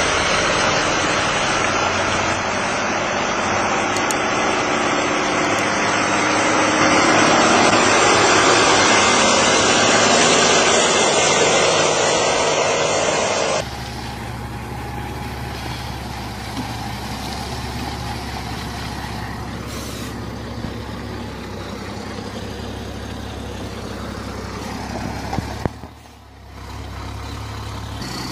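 Heavy logging truck's diesel engine and machinery. A loud, even rushing noise cuts off suddenly about halfway through, giving way to a quieter, steady low engine hum as the truck and its log trailer manoeuvre. Two short sharp sounds come near the end.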